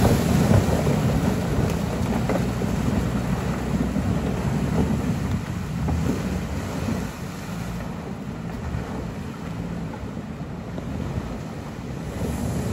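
Jeep Wrangler engine running as it drives through a flooded, ice-covered track, with water sloshing and ice breaking under the tyres and a few sharp knocks. The sound is loudest at first and fades after about seven seconds as the vehicle moves away.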